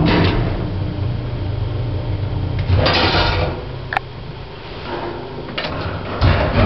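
Original 1960s J&E Hall service lift in operation: a steady low hum from the car and its machinery, with a short sliding rush about three seconds in, a brief sharp tone about four seconds in, and clunks near the end.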